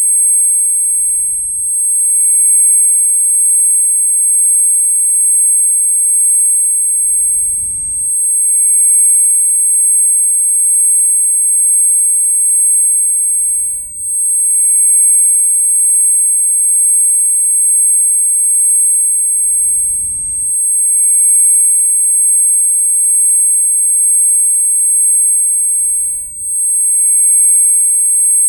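Ear-ringing tinnitus sound effect: a loud, steady, very high-pitched whine made of several pure tones, with a brief dip about every six seconds.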